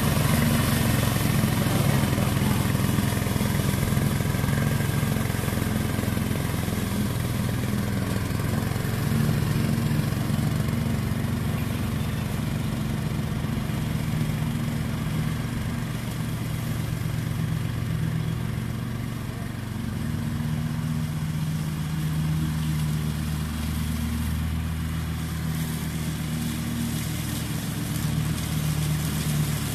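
Riding lawn mower's 6.5 hp Briggs & Stratton four-stroke petrol engine running steadily while mowing tall grass. The sound fades a little in the middle as the mower moves away and grows again as it comes back.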